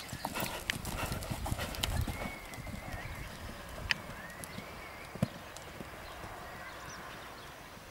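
Hooves of a German Sport Horse gelding cantering on a sand arena: dull thuds, loudest in the first couple of seconds and fading as the horse moves away. Two sharp clicks come around the middle.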